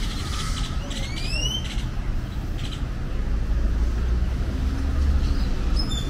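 City street traffic: a steady low rumble of cars on the avenue that swells for a couple of seconds past the midpoint. About a second in, a high whistle rises twice in quick succession, like a bird call.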